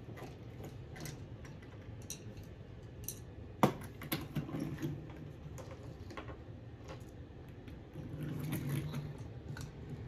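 Scattered light clicks and clatters of small toy dump trucks and pebbles being handled on a wooden play table, with one sharper click a little before halfway.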